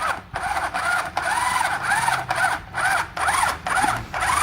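A small drill whirring in quick pulses, about two or three a second, its whine rising and falling with each pulse.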